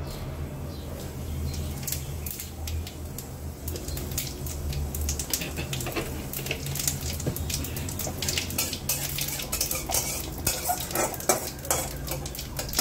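Metal spatula clinking and scraping against an aluminium kadai while cumin seeds are tempered in hot oil, the clinks coming thick and fast in the second half. A steady low hum runs underneath.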